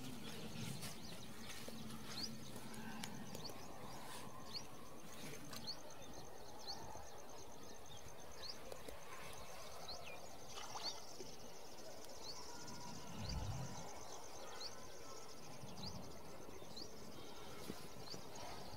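Outdoor ambience with a bird repeating a short rising chirp about once a second over a steady high insect trill. A brief low rumble comes a little past the middle.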